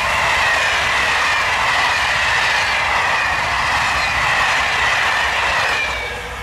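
Passenger train of SNCF Corail coaches rolling past at speed: a steady rush of wheels on rail with a faint high whine that slides slowly down in pitch. The sound drops away about six seconds in as the last coach goes by.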